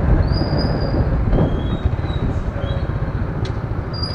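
Riding noise from a moving motorcycle: a steady rumble of wind and road noise on the action camera's microphone. A few short high-pitched squeals come through over it.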